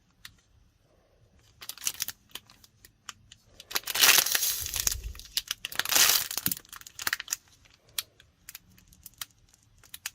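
Plastic wrapper crinkling and tearing as a squishy toy is unwrapped, in many short crackles with two louder rustling bursts about four and six seconds in.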